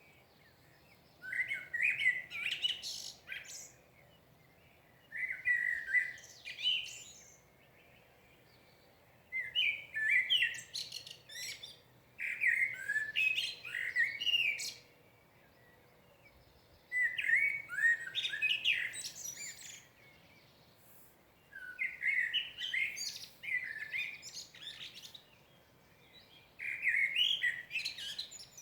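A songbird singing in repeated phrases, each two to three seconds long, with short pauses between them; about seven phrases in all.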